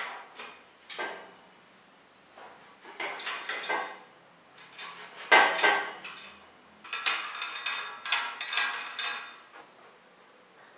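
Bursts of metallic clinking and scraping as a chrome quill stem and handlebar are slid into a bicycle's headset and twisted into line, about five separate clusters with quiet gaps between them.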